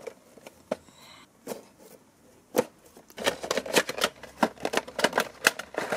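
Cardboard action-figure box and its plastic tray being handled and opened: a few scattered clicks and rustles, then a dense run of crackling clicks from about three seconds in.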